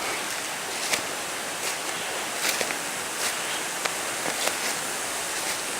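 Small waterfall running steadily, an even rushing hiss of falling water, with a few brief ticks scattered through it.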